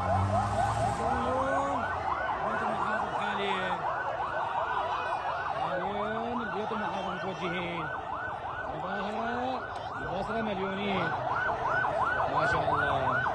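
Police vehicle siren on a fast yelp, its rising sweeps repeating about three times a second, with voices calling out under it.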